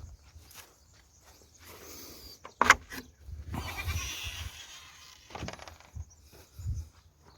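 Goats bleating, with a short loud sound about two and a half seconds in, over low rumble from wind or movement on the microphone.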